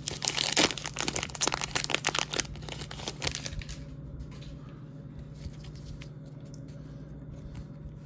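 Plastic baseball card pack wrapper being torn open and crinkled by hand, a dense crackling that dies down about three and a half seconds in.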